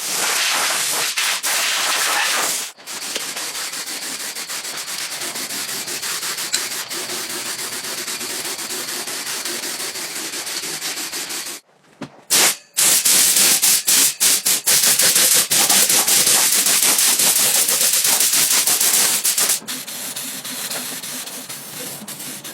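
Steady rasping hiss of abrasive surface work, like sanding, broken by abrupt cuts about three and twelve seconds in.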